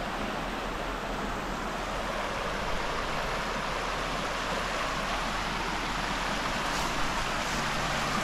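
Small rocky mountain stream running over stones: a steady rush of flowing water.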